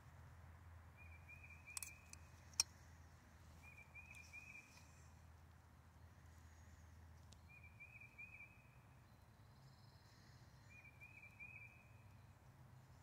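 Faint outdoor quiet with a short pulsed animal call, repeating about every three seconds. A single sharp click comes about two and a half seconds in.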